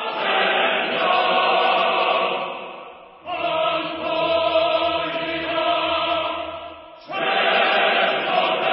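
Background choral music: a choir chanting in long held phrases that swell and fade, with a new phrase beginning about three seconds in and again about seven seconds in.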